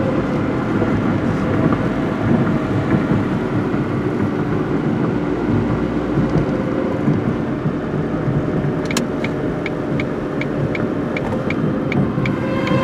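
Car driving, heard from inside the cabin: steady tyre and engine noise, with a tornado warning siren's tone faintly under it at times. From about nine seconds in, a turn signal ticks about twice a second.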